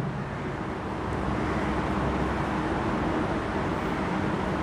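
Steady background noise with a faint low hum, even and unbroken throughout.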